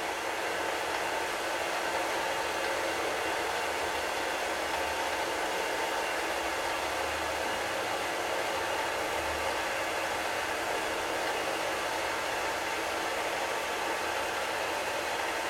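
Small benchtop machine lathe running steadily, spinning a wax phonograph cylinder on a mandrel: an even motor-and-drive hum with no strikes or changes.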